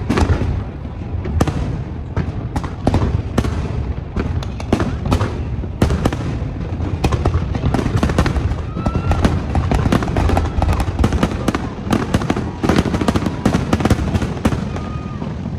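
Fireworks bursting overhead in rapid, continuous succession: many overlapping bangs and crackles over a steady low rumble.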